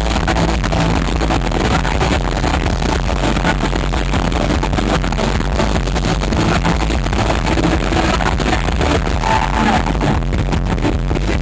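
Synth-pop band playing live: loud electronic music with heavy bass, recorded from the audience with poor, distorted sound.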